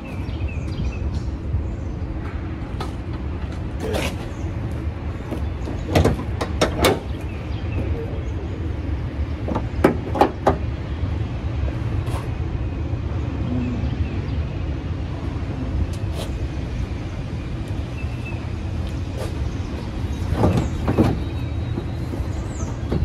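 Scattered metallic clicks and clunks over a steady low rumble: a Ford Fiesta's hood being released, lifted and propped, and parts handled in the engine bay. The clicks come bunched about six to seven seconds in, about ten seconds in, and again near the end.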